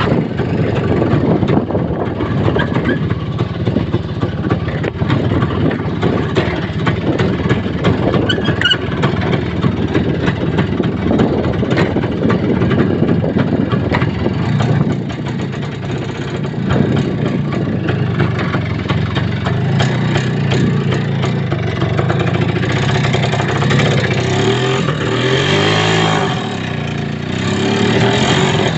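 A vehicle's engine running under way over a rough track, with a steady rattle of the ride. Near the end the engine's pitch rises and falls as the driver changes speed.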